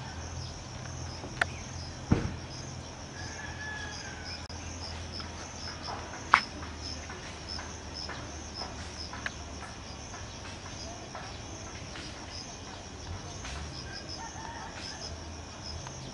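Insects chirring steadily in a fast pulsing rhythm, with a few sharp clicks, the loudest about six seconds in.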